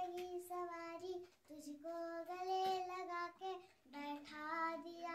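A young girl singing a Hindi film song unaccompanied, holding long notes in short phrases with brief breaks between them.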